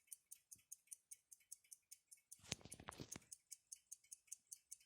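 Faint, steady ticking of an Alpina caliber 19H6 pocket watch movement running with its case open, about five ticks a second. A few louder clicks sound about halfway through.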